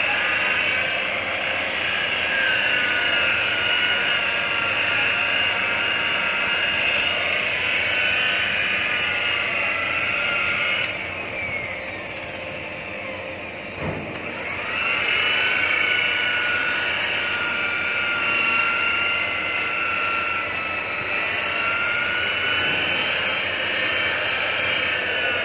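Corded electric rotary polisher with a foam pad, its motor running with a steady high whine as it buffs car paintwork. About halfway through, the whine drops away and sinks low for a few seconds, then winds back up to speed.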